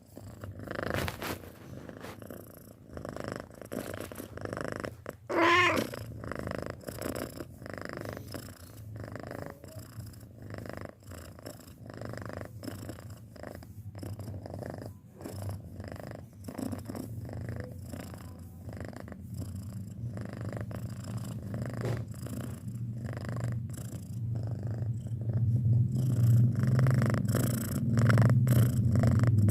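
Six-month-old domestic cat purring in a steady, rapid rumble that grows louder near the end. About five seconds in there is a short, wavering, higher-pitched call.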